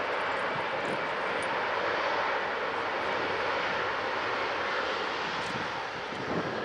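An Airbus A380-841's four Rolls-Royce Trent 970 turbofans running at low taxi power, heard as a steady jet rush without pitch changes.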